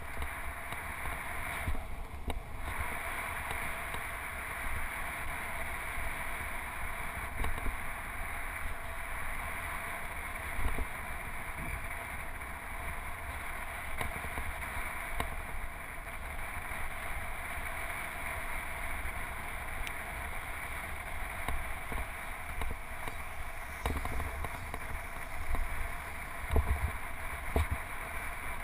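Steady rushing wind and tyre noise from a road bike rolling along a paved path, heard from a handlebar-mounted camera, with uneven low rumbles of wind buffeting the microphone.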